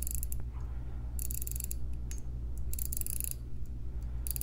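Crown of a 1920s Waltham 12-size 15-jewel pocket watch being turned by hand to wind the mainspring: each turn gives a quick run of fine ratchet clicks from the winding mechanism, repeating about every second and a half, three or four times.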